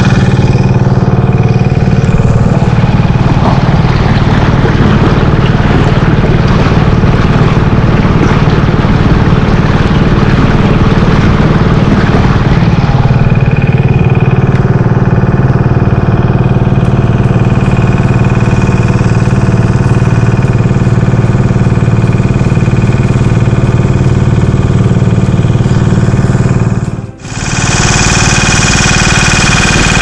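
Boat engine running steadily under way, a continuous drone with water and wind rush over it in the first half; the sound briefly drops out near the end.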